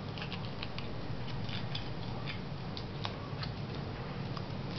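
Aluminium foil crinkling in small, irregular clicks as it is pressed and folded around a wooden match, over a steady low hum.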